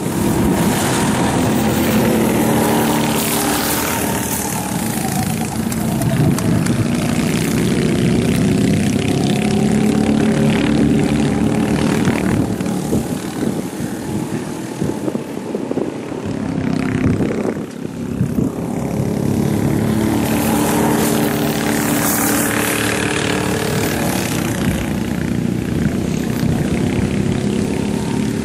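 Several rental go-kart engines running on the track, their pitch rising and falling as the karts accelerate and brake through the corners and pass by. The sound dips briefly a little past halfway, then swells again as more karts come through.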